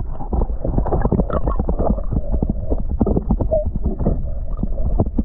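Muffled water and handling noise right at the microphone while a trout is released over the side of the boat: rapid, irregular knocks and sloshes over a low rumble, with the high end cut off.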